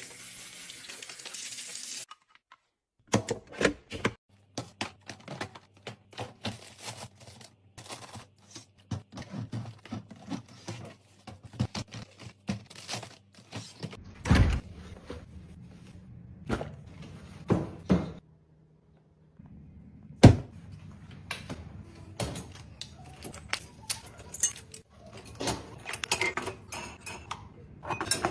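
Containers and groceries being handled and set down while restocking a kitchen: a run of short knocks, clinks and thunks of packaging, jars and lids, over a low steady hum. A brief hiss opens it.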